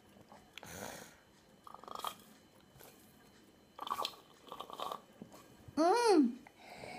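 Two people sucking milk up through flavour drinking straws: several short wet slurping and sucking sounds. About six seconds in comes a short hummed 'mmm' that rises and then falls in pitch.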